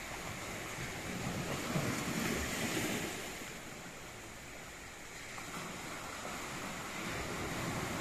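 Sea surf: waves breaking and washing up the shore, swelling about a second or two in, easing off, then building again near the end.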